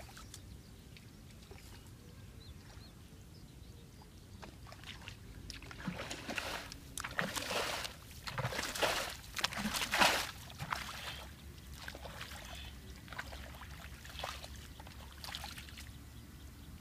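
Splashing and sloshing of shallow muddy water as a person wades and grabs for fish by hand, in an irregular run of splashes from about six to eleven seconds in, loudest near the end of that run; faint water movement before and after.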